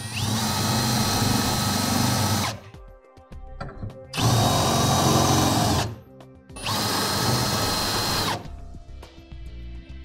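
Milwaukee Fuel cordless drill with a 3/8 bit run against the truck's steel frame through a bracket's holes to mark where the holes will go. It runs three times, each run whining up to full speed, holding steady for a second or two and then stopping.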